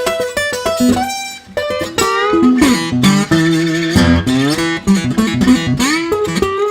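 Background music: a guitar-led tune with notes that slide and bend in pitch.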